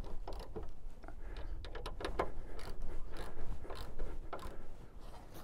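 Irregular metallic clicks and rattles as a steel solar roof hook is aligned and its screws tightened onto the rafter under the roof tiles.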